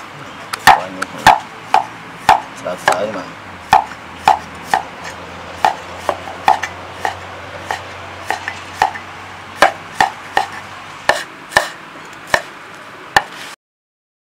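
A cleaver chopping kro vanh stalks on a chopping board: sharp knocks of the blade on the board, about two a second and unevenly spaced, stopping suddenly near the end.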